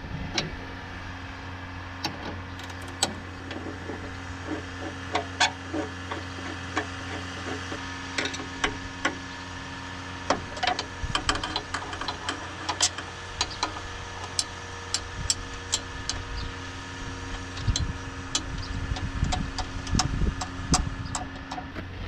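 A wrench clicking and clinking against metal as the seat-mounting bolts of an old Farmall tractor are loosened, in short irregular bursts that come thicker toward the end. A steady low machine hum runs underneath.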